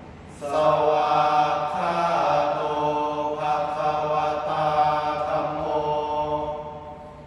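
Group of young male voices chanting Thai Buddhist sarabhanya together: one long melodic phrase that begins about half a second in and fades near the end.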